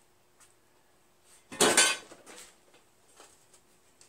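A short, loud metallic clatter about a second and a half in, as of metal tools or parts knocking together, followed by a few light knocks.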